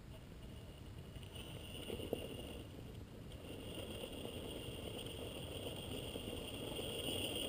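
Gmade Sawback RC scale crawler's Holmes Hobbies 27-turn brushed motor and geartrain whining as the truck crawls slowly up a rock ledge; the whine steadies and grows louder from about three seconds in, over a low rumble on the microphone.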